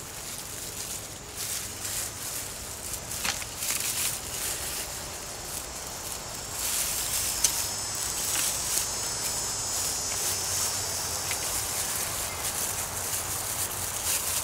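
Rustling and scraping of hands digging through potting soil and potato plants in a garden container. Around the middle, a high, faint insect buzz comes in for a few seconds.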